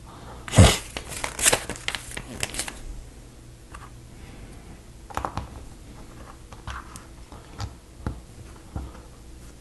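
Plastic Lego bricks clicking and rattling as pieces are picked from loose parts and pressed onto a plate: a dense clatter of clicks over the first few seconds, then scattered single clicks.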